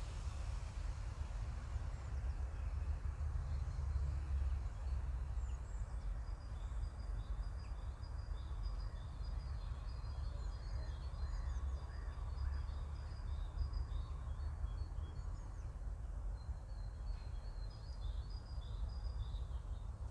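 A steady low rumble with birds chirping faintly and repeatedly over it from about six seconds in.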